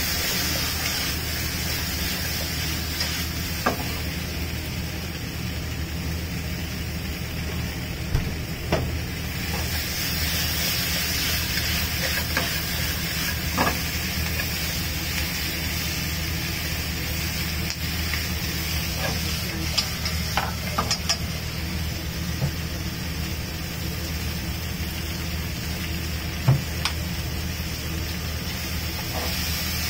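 Food sizzling as it fries in a pan, with a steady low hum underneath and a few light clinks of utensils.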